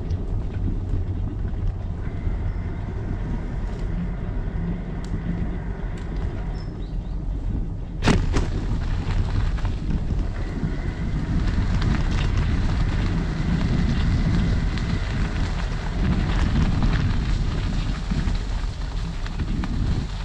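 Wind buffeting a GoPro's microphone on a moving bicycle, a steady low rumble. About eight seconds in there is one sharp knock, and after it the hiss of tyres rolling over gravel grows louder.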